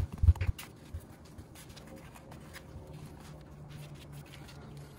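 Hands working flour dough on a kitchen counter: a few dull thumps in the first half second, then light rubbing and scattered soft taps as the dough is shaped.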